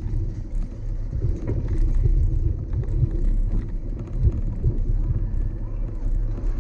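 A continuous low, buffeting rumble with a few faint ticks and clicks over it.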